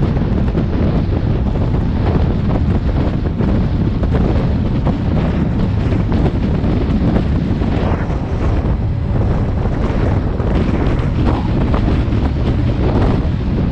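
Loud, steady wind rumble on the microphone of a motorcycle moving at road speed.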